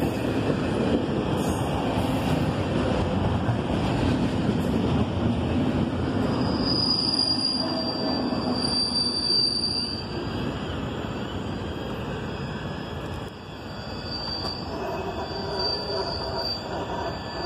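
Double-stack intermodal freight cars rolling past, wheels rumbling on the rails. A high-pitched wheel squeal comes in about a third of the way through and again near the end. The rumble eases in the second half as the end of the train moves away.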